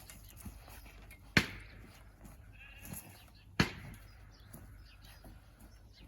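A tamping bar pounding the backfilled dirt and stones around a new vineyard post: two heavy strikes about two seconds apart, each with a short ringing tail.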